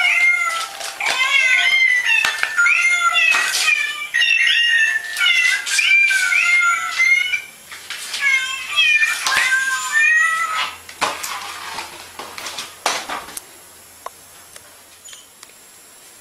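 A cat meowing over and over in short calls that bend up and down in pitch for about the first ten seconds. After that the calls stop and a few knocks or scuffs are heard before it goes quiet.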